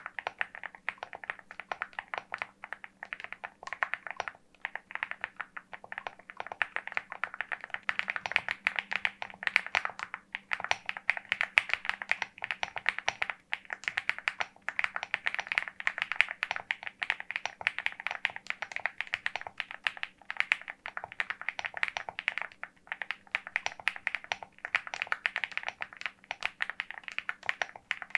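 Fast, continuous typing on the LEOBOG Hi75, an aluminium-cased 75% mechanical keyboard with linear switches: many closely spaced keystroke clacks, broken by a few short pauses.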